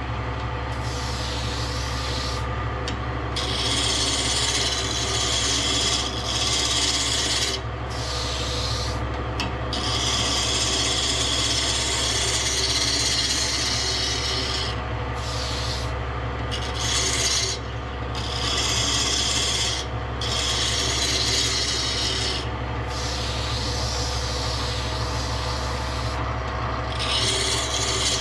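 Wood being abraded in repeated strokes of a few seconds each, a rough scraping hiss that stops briefly between strokes. A steady motor hum runs underneath.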